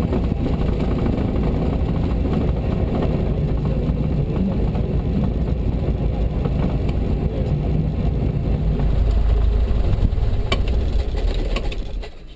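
Cessna 172 Skyhawk's piston engine running at low power, rising slightly near the end and then cutting off suddenly, as at engine shutdown.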